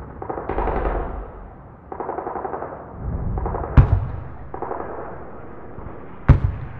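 Bursts of rapid gunfire, with two sharp, louder single shots, one near the middle and one near the end.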